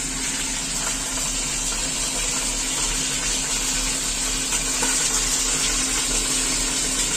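A very large whole fish deep-frying in hot oil in a wok: a steady sizzle with small scattered pops.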